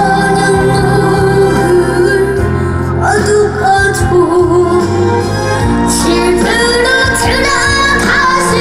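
A trot song: a high voice sings long held notes over instrumental accompaniment.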